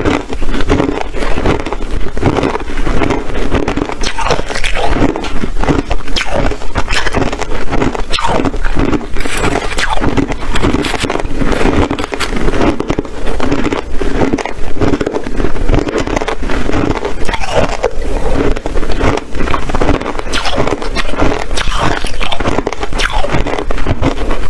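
Someone chewing hard ice, a continuous run of crunches and cracks one after another.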